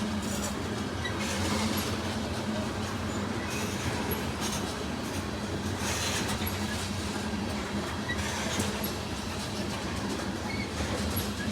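Freight cars of a mixed freight train rolling past in a steady rumble. Their wheels clatter irregularly over the rail joints.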